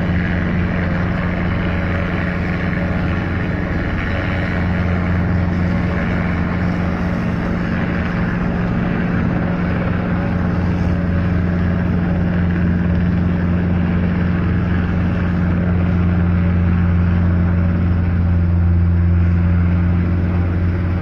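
Helicopter in flight nearby: a steady, loud drone of rotor and engine with a strong low hum, growing slightly louder near the end.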